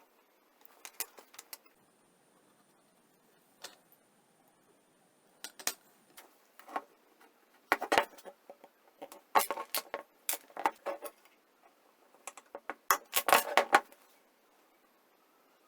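Irregular clicks and clinks of small hard objects, such as tools or metal parts, being handled and set down. They come in short clusters and grow busier and louder toward the end.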